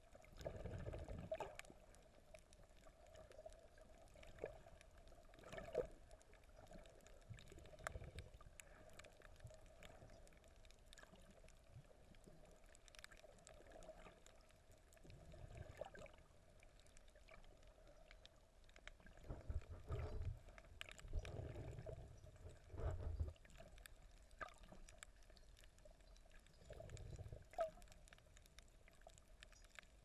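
Faint, muffled underwater sound through a camera's waterproof housing: low swells of moving water from the swimmer, several times, over a steady faint hum with scattered small clicks.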